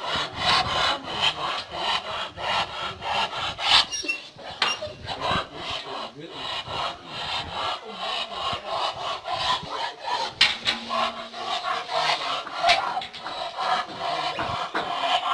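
Rottweiler panting hard with its tongue out: a quick, even, rasping breath rhythm close to the microphone. It is breathing heavily from straining against its chain.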